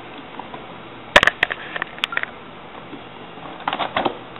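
Cardboard box of a CPU cooler being worked open by hand: a sharp clatter of clicks and knocks just after a second in, a few lighter ones after it, and another cluster of knocks near the end.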